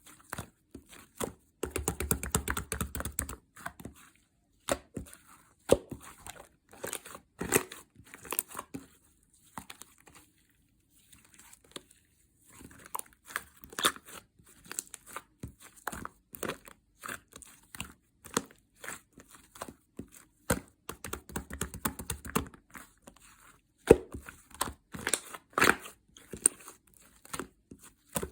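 Pink opaque slime being kneaded and stretched together with soft lightweight clay by hand, giving irregular sticky clicks, pops and crackles, in places coming in dense runs.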